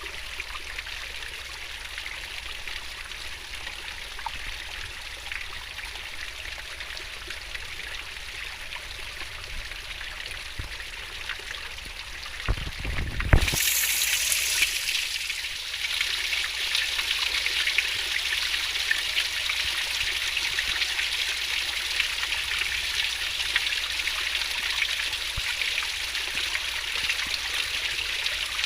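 Fast-flowing river water burbling and splashing. About halfway through there is a brief low rumble, and then the rush of water is louder.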